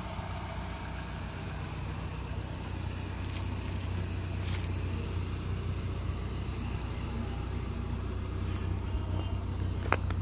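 1990 Plymouth Voyager's turbocharged 2.5-litre four-cylinder idling steadily, a low hum that grows a little louder toward the end as the exhaust comes nearer. A sharp click sounds near the end.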